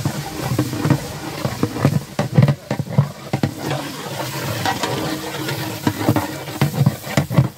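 A long metal ladle stirring and scraping frying masala in a large metal biriyani pot, with the masala sizzling and many short, sharp scrapes and knocks of the ladle against the pot.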